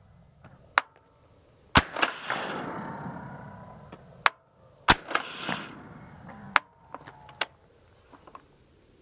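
8-inch 5.56 AR pistol with a SureFire SOCOM Mini suppressor firing 112-grain subsonic rounds: two sharp shots about three seconds apart, each with a short echoing tail. Lighter metallic clicks and clinks come between and after the shots.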